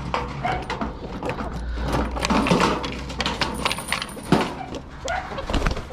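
Metal chain and padlock clinking and rattling as a chicken-coop gate is unlocked. A few clucks from the Rhode Island Red hens come in between.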